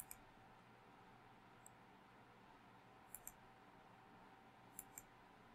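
Computer mouse button clicking three times, each click a quick pair of ticks, as path nodes are placed with a drawing program's pen tool; faint room hum underneath.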